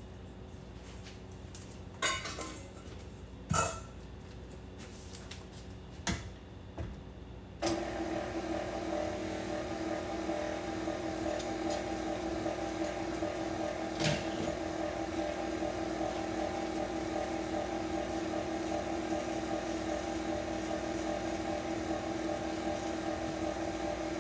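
A few knocks and clinks of a metal mixing bowl and utensils, then about eight seconds in an electric stand mixer starts and runs with a steady motor hum, mixing cake batter.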